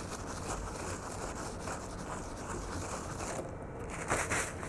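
A paper towel rubbed back and forth over a metal plate on a circuit board, a steady scrubbing rustle. Near the end comes a short, louder rustle as the towel is lifted and handled.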